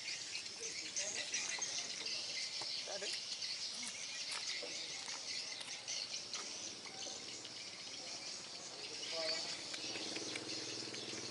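A dense, high-pitched chirping chorus of insects and birds, going on steadily throughout.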